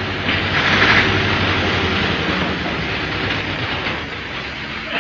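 Loud, steady mechanical clatter with a low hum underneath, loudest about a second in.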